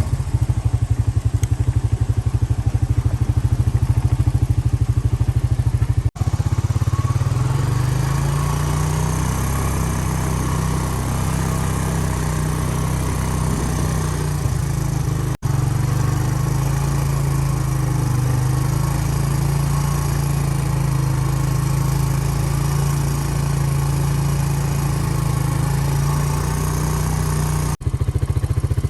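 Vehicle engine running steadily with a low drone, the sound briefly cutting out three times.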